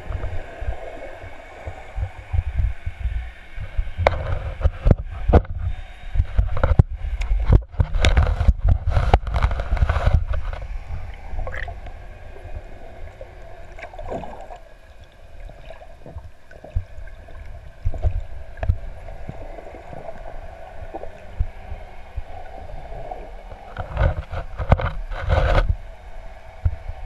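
Water heard through a GoPro's underwater housing: a constant muffled low rumble of water moving past the camera, with bursts of rushing and sharp knocks from about four to ten seconds in and again near the end.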